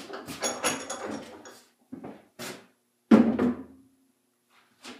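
A long PVC pipe barrel being handled on a wooden workbench: a clatter of light knocks and scrapes, then one loud thunk with a short ring about three seconds in as it is laid down.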